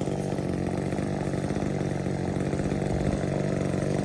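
Echo CS-355T top-handle chainsaw, a small two-stroke, running steadily.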